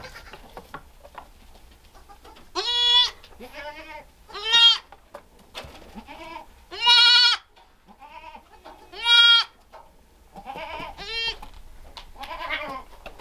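Goat kid bleating repeatedly: four loud, high calls of about half a second each, with several quieter bleats between and after them.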